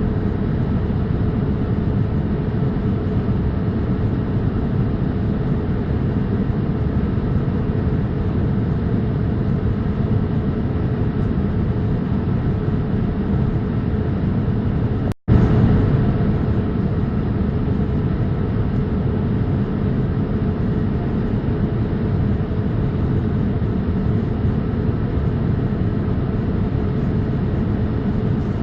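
Steady drone of a Boeing 787-8 airliner heard from inside the cabin, engine and airflow noise with a faint steady hum. It breaks off for an instant about halfway through.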